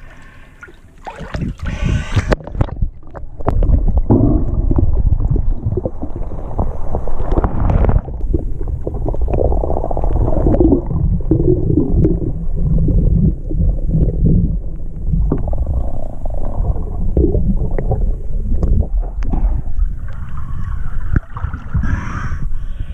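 Muffled underwater rumbling and gurgling from water moving around a submerged action camera as a snorkeler swims under a boat's hull. There is splashing as the camera goes under in the first few seconds and again as it comes back up near the end.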